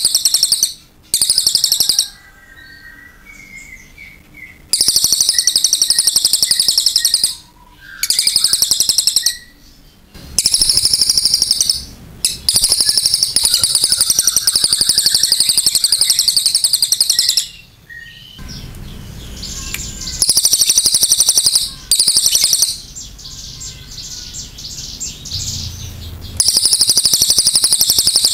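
Crested jay (cililin) calling in long, loud, high-pitched trills that come in bursts of one to five seconds with short pauses, about eight times.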